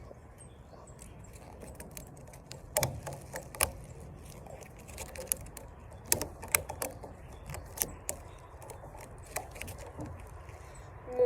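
Rubber bands being stretched and snapped one after another around a watermelon already bound with several hundred bands: a scatter of sharp, irregular clicks and slaps over low background noise.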